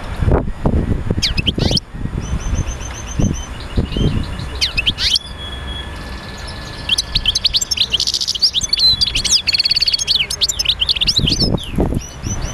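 Birds chirping and singing: many short rising and falling chirps and quick trills, busiest in the middle. There is low rumbling noise near the start and near the end.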